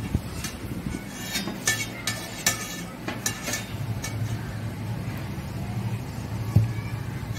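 Stainless-steel plates clinking and scraping as they are handled and set against each other on a table. There are a few sharp clinks in the first half and one louder knock near the end, all over a steady low hum.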